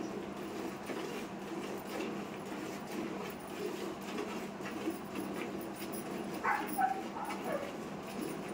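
Cow being milked by hand, milk squirting into a steel pail in a steady run of streams. About six and a half seconds in, a brief high whining animal call cuts in.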